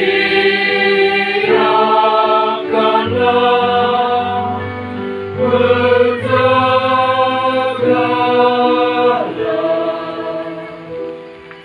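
Mixed choir of young voices singing a religious song a cappella-style in sustained chords, the harmony moving from one held chord to the next every second or two. It eases off quieter near the end.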